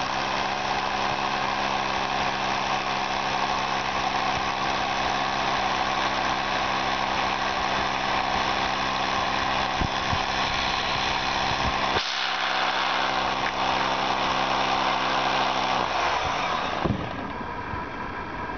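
Arc welding: a steady frying crackle over an engine running evenly, as from an engine-driven welder. The engine tone stops about sixteen seconds in, and the crackle cuts off about a second later.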